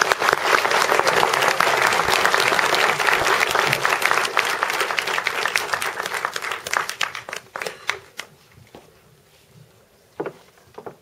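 Theatre audience applauding: dense clapping that thins out about seven seconds in and dies away to a few scattered claps.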